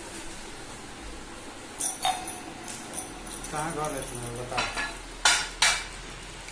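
Phone being handled close to its microphone: scattered clicks and knocks, two of them louder near the end, with a brief bit of voice in the middle.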